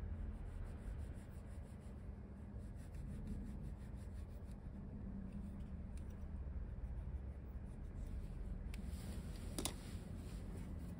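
Small knife scraping and cutting at the split rubber fuel hose of a Yamaha YBR 125: faint, repeated rasping strokes over a low, steady background rumble. A couple of sharp clicks come near the end.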